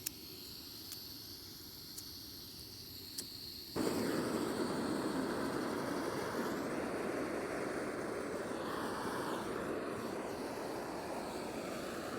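Portable camping gas stove: a few sharp clicks about a second apart, then the burner catches suddenly about four seconds in and hisses steadily under the kettle.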